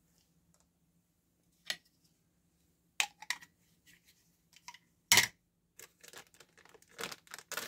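Hands handling small objects on a tabletop: a few separate sharp clicks and taps, the loudest about five seconds in, followed by light scattered ticking and rustling near the end.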